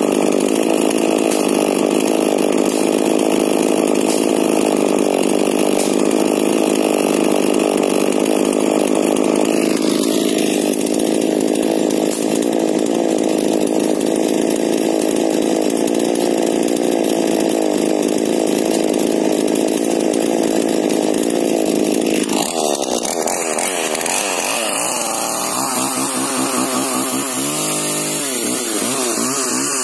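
Husqvarna 125 two-stroke chainsaw with a modified exhaust running steadily at idle. Its note shifts about ten seconds in. From about twenty-two seconds on its pitch rises and falls repeatedly as the throttle is worked.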